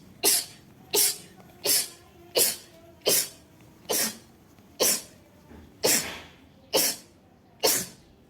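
A woman sneezing in a rapid series: about ten short, sharp sneezes, a little under one a second.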